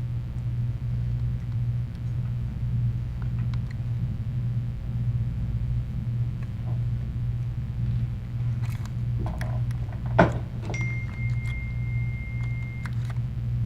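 Steady low background hum throughout, with a single tap about ten seconds in, followed by a faint steady high-pitched tone lasting about two seconds.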